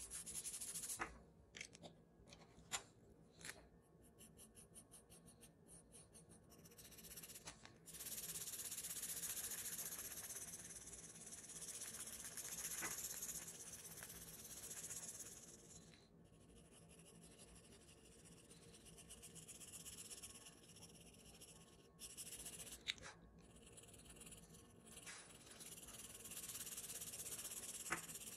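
Charcoal pencil, then a white pencil, scratching on toned paper: a few light taps and quick short strokes at first, then longer stretches of steady shading broken by brief pauses.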